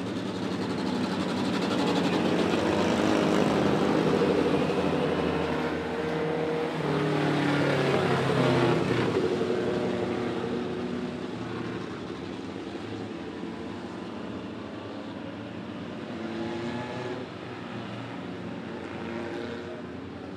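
Several racing mini pickup truck engines running together on a dirt track, their pitches rising and falling. They are loudest as the pack passes in the first half, then settle to a quieter, steadier drone.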